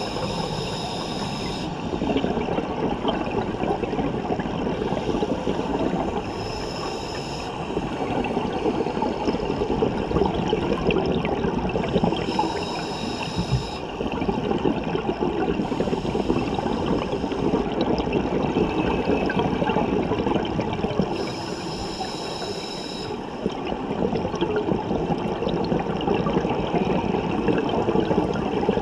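Scuba diver breathing through a regulator underwater: a short hiss on each in-breath, four times, each followed by a long stream of gurgling, crackling exhaled bubbles.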